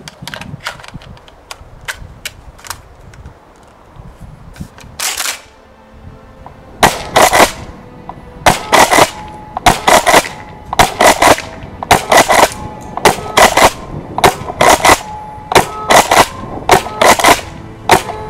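Tokyo Marui Kel-Tec KSG gas-powered airsoft pump shotgun being fired shot after shot: light handling clicks at first, then from about seven seconds in a steady run of about ten sharp double cracks a little over a second apart as the shell's BBs are fired off.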